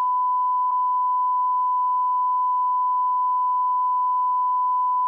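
Emergency alert system attention tone: a single steady, unbroken beep at one pitch, sounding as part of an alert system test.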